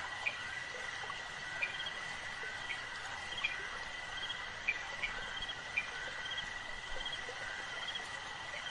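Night insect ambience: a steady high cricket trill, with short chirps repeating about once a second.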